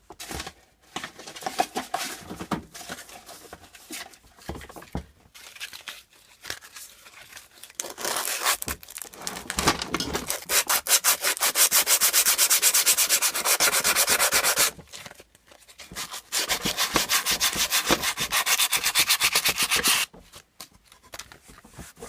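Abrasive rubbed by hand along the crankshaft of a 1977 Briggs & Stratton engine, cleaning the shaft so the crankcase cover can slide off over it. Irregular scraping strokes at first, then two long spells of fast, steady back-and-forth scrubbing with a short break between them.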